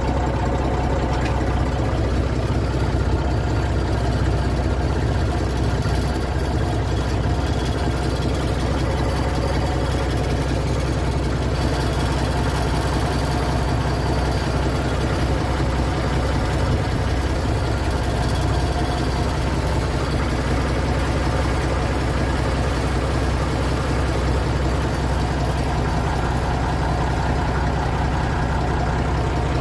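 Massey Ferguson 35 tractor engine running steadily at idle.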